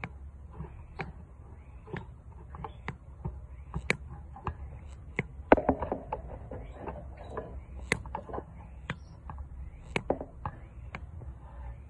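Sharp, irregular clicks and taps, a few a second, from handling at the wire cage and feeder, with faint short chirps from a young canary. The loudest cluster of taps comes about five and a half seconds in.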